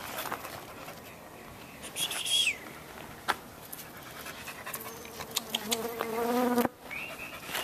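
Dogs panting and sniffing, with scattered short clicks. About five seconds in, a steady pitched hum builds for over a second and then cuts off suddenly.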